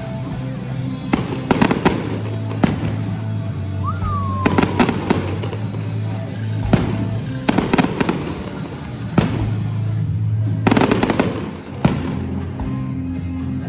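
Aerial fireworks going off in a run of sharp bangs, about a dozen, some in quick clusters of two or three, with music playing underneath.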